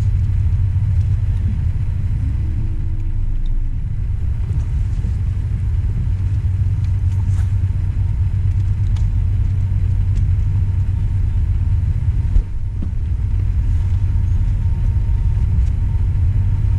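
A steady, loud low rumble, with a single sharp knock about twelve seconds in.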